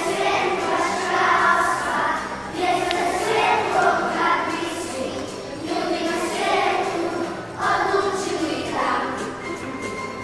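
Music with singing: a song accompanying a children's dance.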